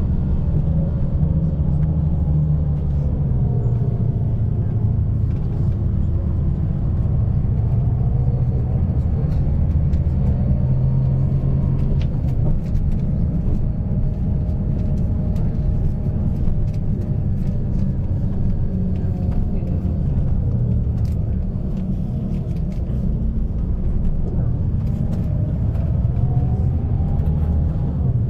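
Steady engine and road rumble inside a moving bus, with the engine's hum slowly rising and falling in pitch as the bus changes speed.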